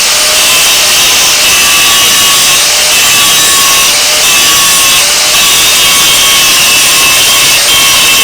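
Small angle grinder with a cutting wheel grinding the head off a pop rivet: a loud, continuous grinding with a steady high whine.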